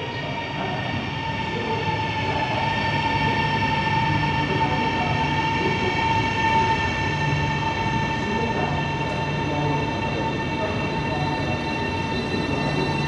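A KLIA Transit CRRC Changchun 'Equator' electric train pulling into a station platform and slowing, with a low rumble and a steady high whine that grow louder over the first few seconds, then hold.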